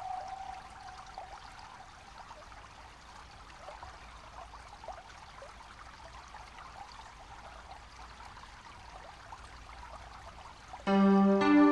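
Faint trickling, water-like noise after a held music note fades away, then music with several held notes comes in suddenly near the end.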